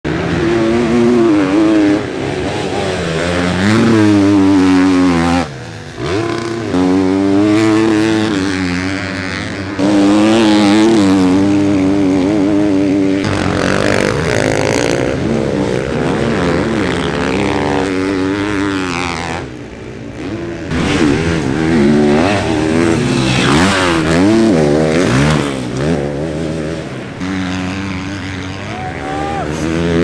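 KTM SX-F 250 motocross bike's 250 cc single-cylinder four-stroke engine at race pace, its pitch repeatedly climbing and falling as the rider accelerates, shifts and backs off. The engine note briefly drops away twice.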